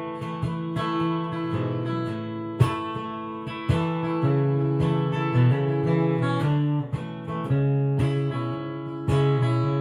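Instrumental break of a folk song: acoustic guitar strumming chords in a steady rhythm, with no singing.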